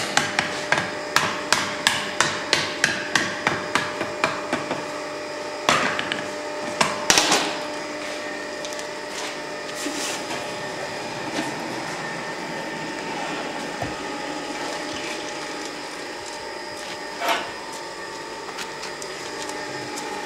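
Blacksmith's hand hammer striking a hot steel hoe blade on the anvil in quick, even blows, about three a second, straightening the blade while it is still hot after tempering. The hammering stops after about four seconds, a couple of louder clanks follow, and then only a steady hum remains.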